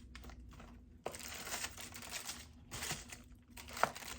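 Tissue paper crinkling and rustling in irregular bursts as it is unwrapped from the belt box, with one sharp tap a little before the end.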